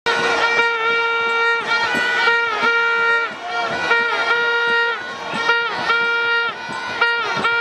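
A reedy horn blowing one steady note over and over, in blasts of about half a second to a second, each break marked by a short dip in pitch.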